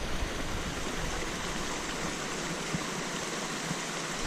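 Steady, unbroken hiss of water, either rain or flowing water, with no distinct drops or splashes standing out.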